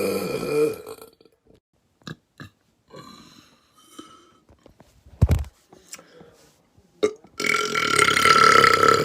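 A man's long, loud burp that trails off about a second in, then a few faint clicks and a single heavy thump just past the middle, then another long, loud burp starting near the end.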